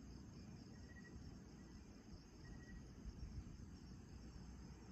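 Faint, steady chorus of crickets and other night insects, a high even shrill, over a low rumble; two short, higher chirps about a second and two and a half seconds in.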